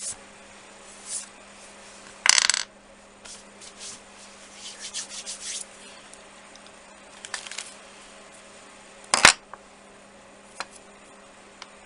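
Resin drilling dust being brushed and wiped off small resin pieces: a series of short rubbing strokes, with a sharp knock about nine seconds in and a few light clicks of hard pieces being handled.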